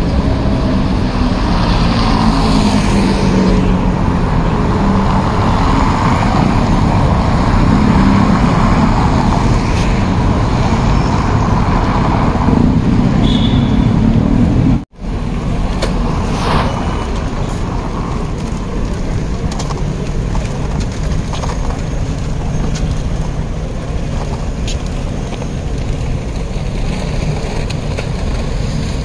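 Busy city street traffic: cars and heavier vehicles passing in a steady rumble. The sound cuts out for a moment about halfway through, then the traffic carries on.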